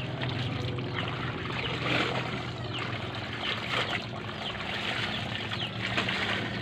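Clothes being scrubbed and squeezed by hand in a plastic basin of soapy water, with irregular sloshing, splashing and trickling.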